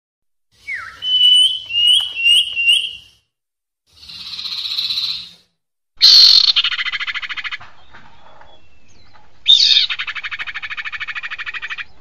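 Recorded lure calls of a female sirpu. First comes a run of four quick, high chirping notes, then a short hissing rasp, then two long, harsh buzzing rattles made of rapid pulses.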